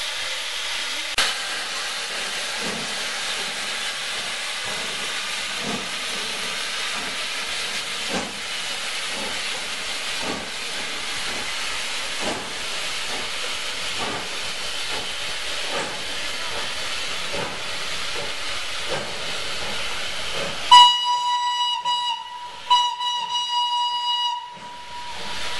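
FS Class 625 steam locomotive moving off slowly, with steam hissing steadily from the open cylinder drain cocks and soft beats about once a second. Near the end the locomotive's steam whistle sounds twice, a shorter blast then a longer one, the loudest sound here.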